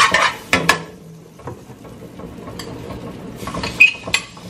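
A few sharp clicks and knocks from cookware being handled: a cluster near the start and another about three and a half seconds in, with a quiet stretch between.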